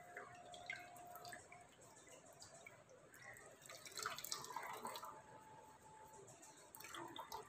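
Faint dripping and trickling of whey as a cloth bundle of fresh chhena (paneer) is wrung out over a steel strainer and pan, with a louder run of trickling about four seconds in.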